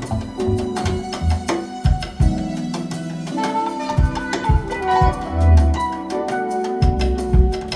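Instrumental jazz with a drum kit and tuned percussion over a deep bass line, played back loud through a large hi-fi loudspeaker system.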